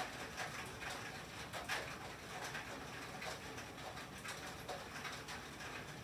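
Rain and sleet hitting a tin roof: an irregular run of light ticks and taps over a steady hiss.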